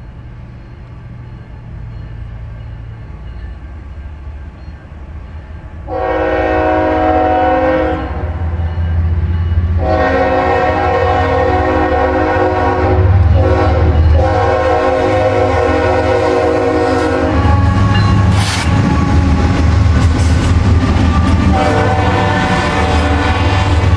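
Freight train approaching and passing, led by Norfolk Southern ES44AC 8114: the diesel rumble grows as it nears, and the locomotive horn blows a short blast about six seconds in, a long one broken once from about ten seconds, and another near the end. From about 17 seconds the locomotives pass close, with loud engine and wheel-on-rail noise.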